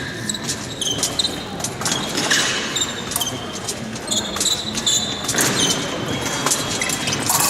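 Fencers' shoes squeaking in short chirps and feet knocking on the piste during fast footwork, with sharp clicks among them. A faint steady high tone sets in near the end.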